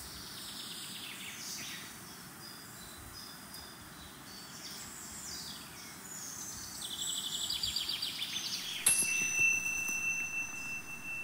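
Birds chirping and trilling over a faint hiss, busiest just before the end. About nine seconds in, a sharp strike sets off a single high ringing tone that holds steady.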